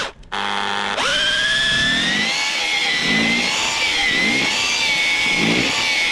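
Cordless power drill turning a 25 mm earth auger into the soil. The motor starts just after the opening, winds up in pitch over about a second, then runs steadily under load, its pitch dipping slightly now and then.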